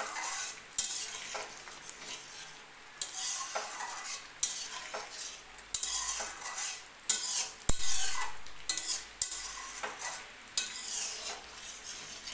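Metal spatula stirring and scraping thick palak paneer gravy around a metal kadai on a gas stove, in repeated uneven strokes, with a sharp clank against the pan about eight seconds in.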